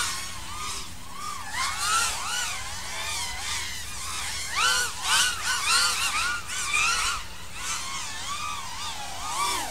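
Several 5-inch FPV racing quadcopters flying a course, their motors and propellers whining. The pitch keeps rising and falling quickly as the pilots punch and chop the throttle.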